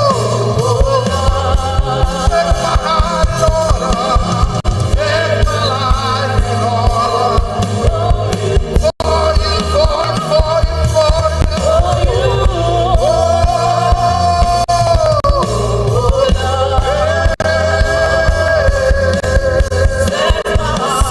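Live gospel worship music: a band with steady bass and drums under voices singing a long, sustained melody. The sound drops out for an instant about nine seconds in.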